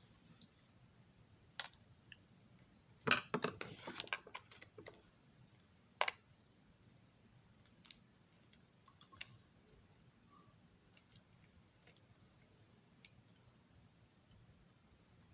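Small sharp clicks from small model parts and tools being handled, with a short run of clattering clicks about three seconds in and a few single clicks after.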